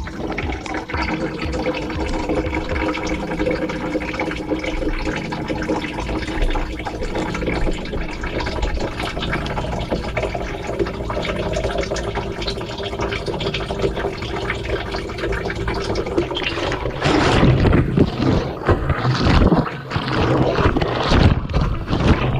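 Water sloshing and splashing inside a tumbling washing-machine drum, heard from inside the drum. About seventeen seconds in it grows louder and rougher, with knocks.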